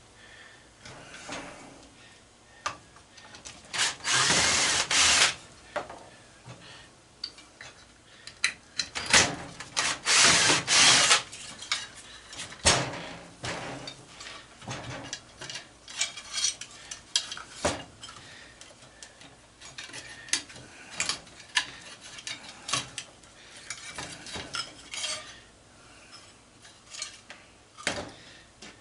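Hand tools working on aluminum light-fixture parts: irregular metal clinks, taps and scrapes, with a few louder rasping bursts of about a second each, twice in the first half.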